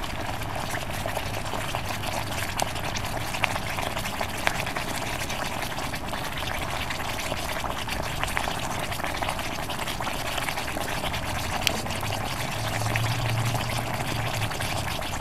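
Water in a plastic bucket boiling hard around fire-heated quartzite stones: a steady bubbling hiss with many scattered small pops.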